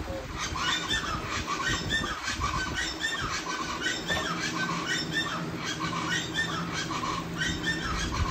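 A bird squawking over and over, about two short calls a second.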